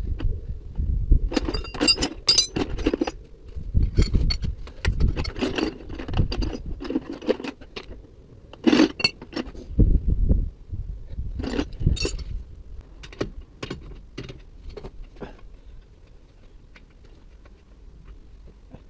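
Metal hand tools being handled: irregular clinks, clatters and knocks of spanners, a ratchet and sockets being picked up and put down. They come thick and fast for the first twelve seconds, then thin out to a few light clicks.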